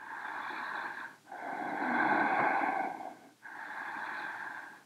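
A woman breathing slowly and audibly while holding a balancing pose: three long breaths, each a second or two, with brief pauses between them.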